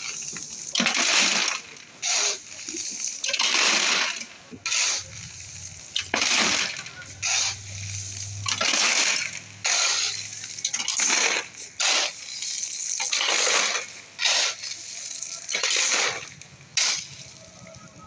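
Shovel scraping into and tossing gravelly construction material in repeated gritty strokes, about one every one to two seconds.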